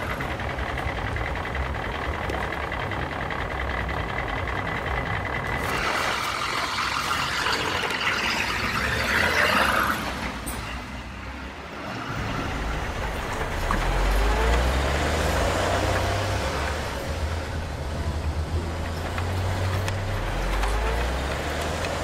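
Heavy truck engine sound, a low rumble that grows stronger in the second half and revs up in a few rising sweeps.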